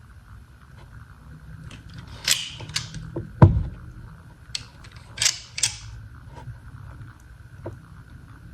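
Channel pliers being handled and worked in the hands: scattered metal clicks and rattles from the jaws and joint, with one louder knock about three and a half seconds in.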